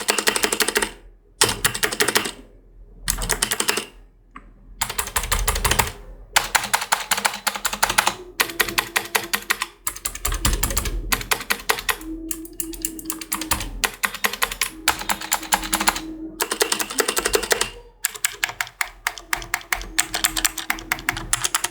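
Typing on a Walton WKM001WB mechanical keyboard with clicky blue switches: fast runs of sharp key clicks in bursts of a few seconds, broken by brief pauses.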